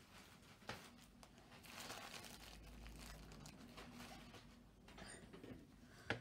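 Near silence with faint rustling and a soft click, then a sharper click near the end.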